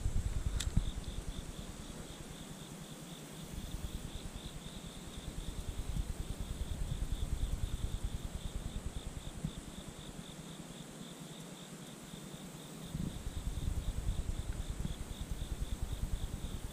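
Insects trilling in the grass: a steady, fast, evenly pulsing high chirp, with a low rumble that swells and fades and one sharp click under a second in.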